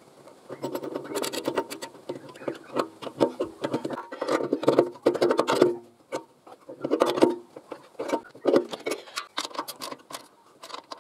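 Steel clinking and tapping in irregular clusters as an adjustable spanner turns the nut on a three-point linkage pin and the pins are fitted into the mixer's hitch brackets.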